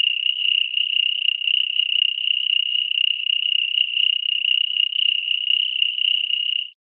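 A calling animal's continuous high-pitched trill, held steady on one pitch with a fine rapid flutter, which cuts off suddenly near the end.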